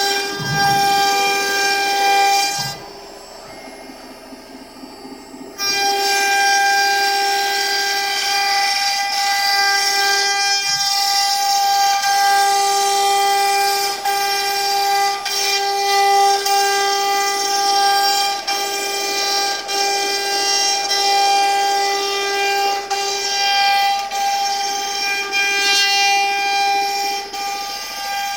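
CNC router spindle running with a steady whine, cutting out for about three seconds near the start and then running on.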